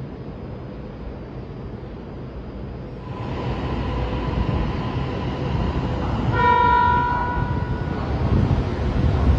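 Electric train running on rails, a low rumble that grows louder from about three seconds in, with a steady tone over it. Just past halfway a short horn-like toot sounds.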